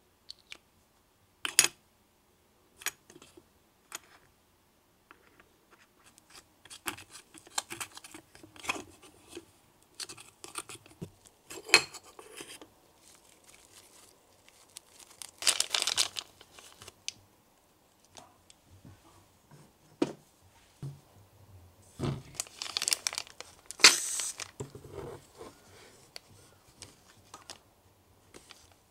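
Close-up handling sounds of tiny plastic toy kitchenware and soft clay slime dough: a few sharp small clicks and taps at first, then sticky crackling and tearing as the dough is kneaded and pulled apart. There are two longer, louder noisy stretches, one about halfway through and one a few seconds before the end.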